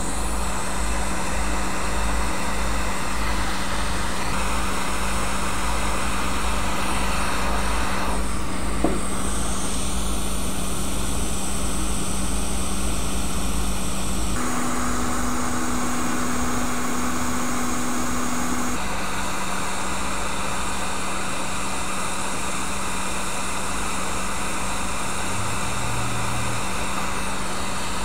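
Hot air rework station blowing a steady stream of air while desoldering a small surface-mount resistor, with a steady hum under the rushing. The sound shifts abruptly several times, and its hum is higher in pitch for a few seconds in the middle.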